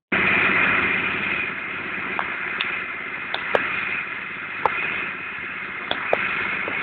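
John Deere 8200 tractor's six-cylinder diesel engine running steadily under load as it pulls a mounted plough. A few short sharp clicks stand out over the engine noise.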